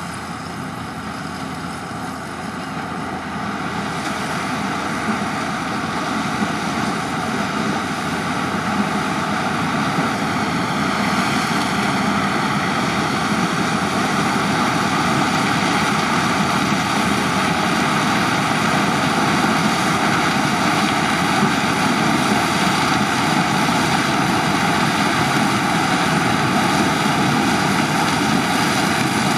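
New Holland CX 7.90 combine harvester running while harvesting maize with an eight-row corn header: a steady mechanical drone with several whining tones. It grows louder over the first ten seconds or so, then holds level.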